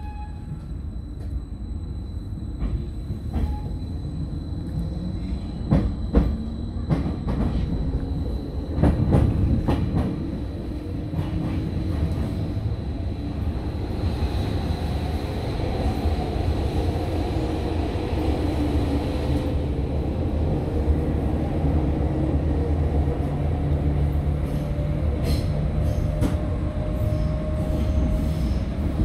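Athens Metro Line 1 electric train heard from inside the carriage as it pulls away and gathers speed: clicking and knocking of wheels over rail joints in the first ten seconds or so, then a steady running rumble with a motor whine that rises slowly in pitch.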